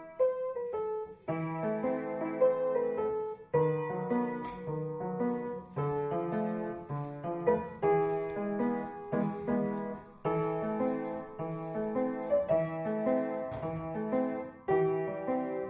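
Solo piano playing a slow piece in sustained chords, with a new chord or melody note struck every second or two.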